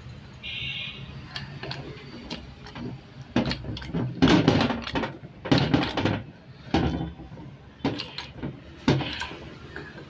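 Small hand-pumped hydraulic hose crimping machine being worked: a string of irregular metal clanks and knocks as the jack handle is pumped and the crimping die closes on the hose fitting, busiest in the middle.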